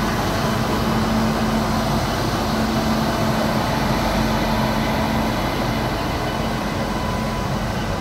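Indian Railways WAP-7 electric locomotive passing close by at low speed as it departs: a steady running rumble with a low hum that drops away about five seconds in.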